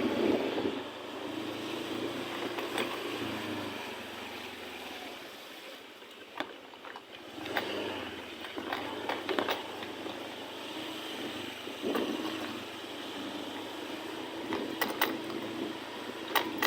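Street traffic noise from vehicles on the road, a steady rush with a faint engine hum, broken by a few sharp clicks and knocks.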